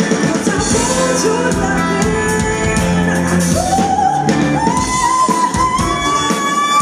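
Live band playing with a woman singing lead over a steady drum beat. About halfway through, the melody climbs to a long held high note.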